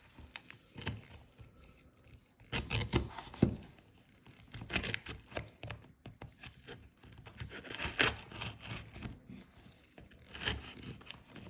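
A Swiss Army knife blade slitting and scraping through parcel packaging, with irregular rips and tearing as the wrapping is pulled open.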